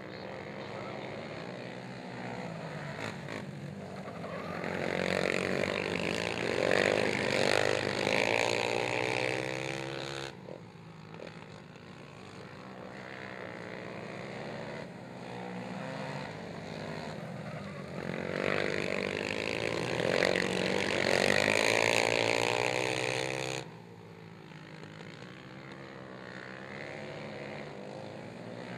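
Racing ATV (quad) engines revving hard on a dirt oval, the pitch rising and falling with the throttle through the turns. The sound swells loud twice as quads pass close, and each time it cuts off suddenly.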